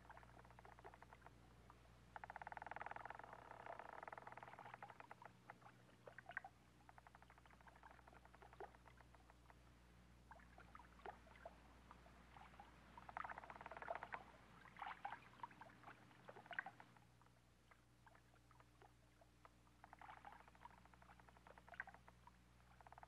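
Faint, intermittent creaking of a wooden ship's timbers, in a few stretches of a second or two.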